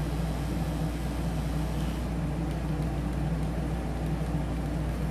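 Rotary tattoo pen running on its wireless battery pack at a low 5-volt setting: a steady motor hum.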